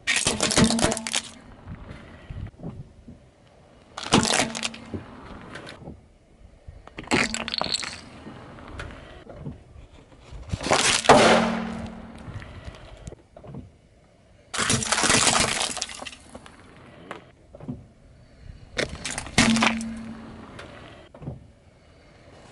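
A car tyre rolling over and crushing small toys and hard candy on asphalt, such as a toy truck and a wrapped lollipop: six loud cracking crunches a few seconds apart, with quieter noise between them.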